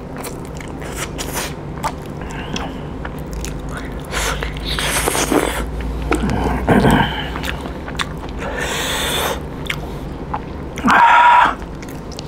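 Close-miked eating by hand: wet chewing and biting of pork belly and rice, with lip smacks and finger-licking clicks and a few louder breathy slurps. A short high-pitched sound near the end is the loudest moment.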